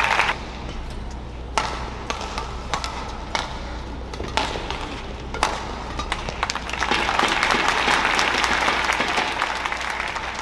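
Spectator crowd in a badminton arena: a few isolated sharp knocks in the first half, then a steady crowd noise of cheering and clapping swells up about seven seconds in and holds.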